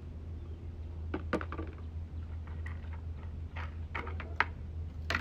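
A few scattered light clicks and knocks over a steady low electrical hum.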